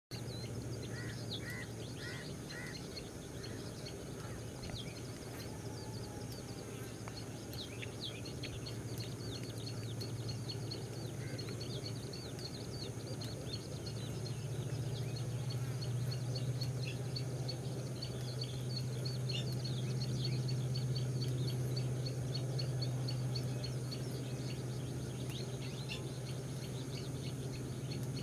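Birds chirping: many quick high chirps throughout, with four short lower notes in the first few seconds, over a steady low hum that grows a little louder about halfway through.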